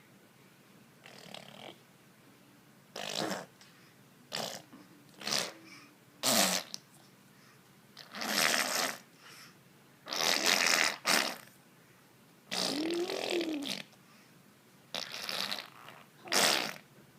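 A child making mouth sound effects: a string of about ten separate short blowing, fart-like raspberry noises with pauses between them. One longer noise about two-thirds of the way in carries a voiced tone that rises and falls.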